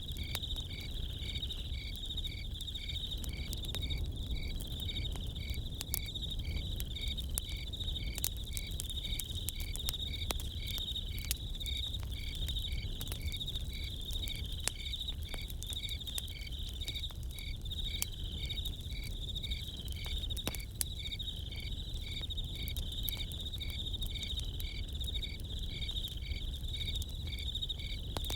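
Crickets chirping in an even pulse, about two chirps a second, over a continuous higher insect trill, with scattered sharp crackles from a campfire and a steady low rumble beneath.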